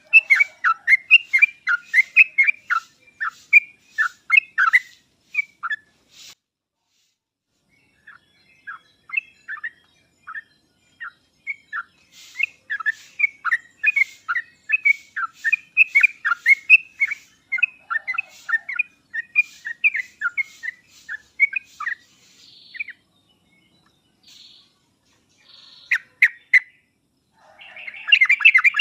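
Yellow-vented bulbul (trucuk) song: runs of quick, bubbly chirping notes in phrases with short pauses between them. Near the end a denser, continuous chatter begins. This is a lure recording used to draw a reluctant trucuk into calling.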